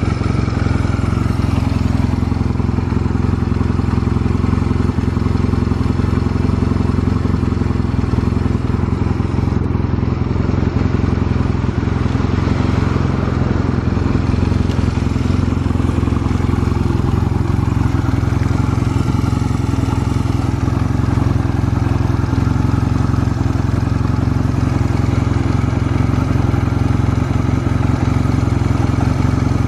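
Honda Rebel 250 (MC13) air-cooled parallel-twin engine idling steadily at a constant speed, with no revving. The engine runs without abnormal noises, as the seller states.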